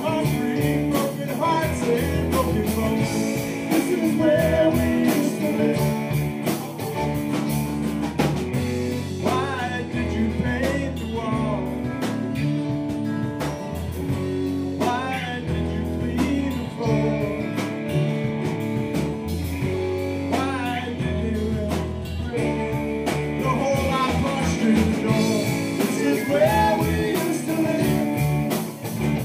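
Live rock band playing: drum kit, bass guitar, acoustic and electric guitars, with a singing voice over them.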